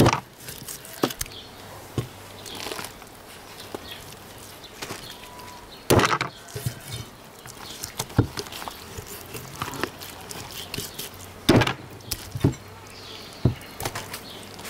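Knives and a cleaver striking a wooden chopping stump as a large raw fish is cut into chunks: scattered sharp knocks at an uneven pace, the loudest about six seconds in and again near eleven and a half seconds.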